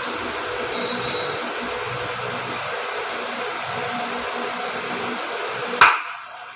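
Steady whirring of an electric motor or fan with a faint hum. Near the end a sharp click, after which the whirring cuts out.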